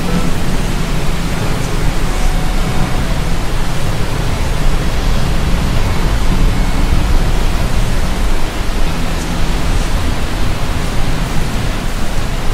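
Steady, loud rushing noise with a low rumble underneath.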